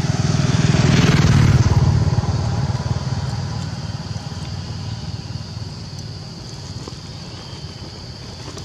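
Small motorbike passing close by on the road, its engine getting louder to a peak about a second and a half in, then fading away.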